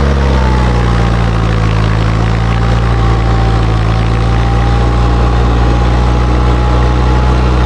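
Tractor diesel engine running at a steady speed, heard close to its exhaust stack, with a faint high whine held above the engine note.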